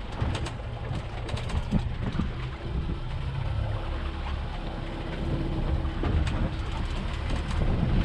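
Low rumble of wind and a small motorboat at sea, with a faint steady outboard-motor hum through the middle and a few sharp clicks in the first two seconds.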